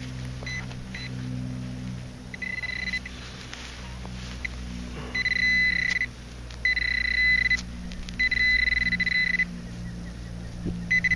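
Handheld metal-detecting pinpointer sounding a high, steady beep in repeated bursts as it is worked through loosened soil; the bursts grow longer and louder about five seconds in as the probe closes on a buried coin.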